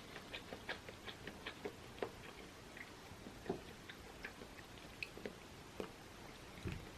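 Faint close-up chewing of curry rice: small wet mouth clicks, several a second at first, then sparser.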